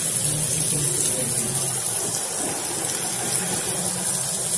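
Chopped pork frying in hot oil in a pan, a steady sizzle.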